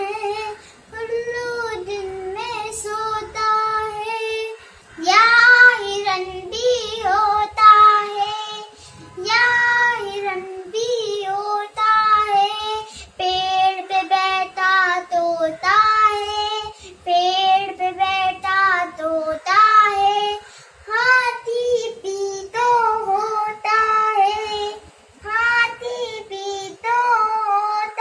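A young girl singing a Hindi children's song solo, in short phrases with brief breaths between them, with no accompaniment heard.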